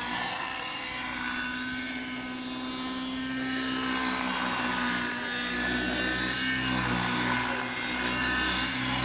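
RC model helicopter's .90-size glow engine and rotor running at high speed during aerobatics, its pitch shifting a little. It grows louder from about three seconds in.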